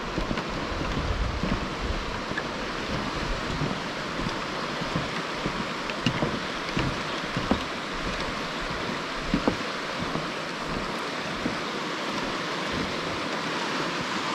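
River water rushing steadily, with wind rumbling on the microphone at times and a few faint clicks.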